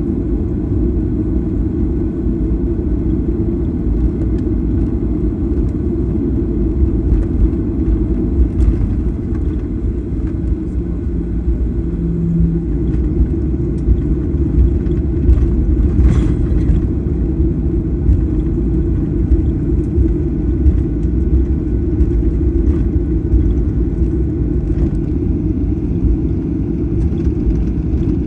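Steady low rumble inside a Boeing 737-800 cabin as it taxis, from its CFM56-7B turbofan engines at taxi power and the airframe rolling on the taxiway.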